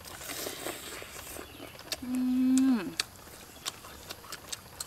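Fried chicken being bitten and chewed, heard as small scattered clicks and crackles. About two seconds in, a louder held vocal sound lasts just under a second and falls in pitch at its end.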